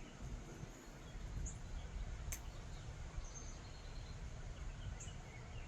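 Outdoor porch ambience: a steady low rumble with a few faint, short, high bird chirps, and a couple of sharp clicks.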